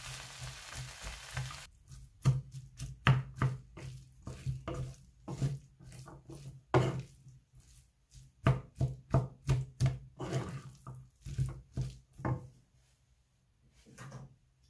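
Wooden spatula stirring and turning minced meat and diced vegetables in a non-stick frying pan: a run of irregular knocks and scrapes against the pan, several a second, over a low steady hum. A sizzling hiss is heard for the first second or two, then cuts off suddenly.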